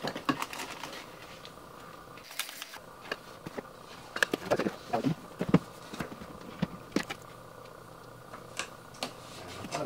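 Unpacking handling noises: scattered irregular clicks, rustles and knocks from a cardboard accessory box being opened and rummaged through, then from a plastic-wrapped glass panel being handled.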